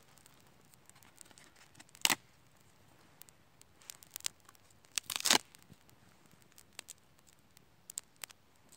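Dry wood shavings and kindling crackling and snapping as a small kindling fire is fed by hand: two short loud crackly bursts, about two seconds in and about five seconds in, among faint scattered ticks.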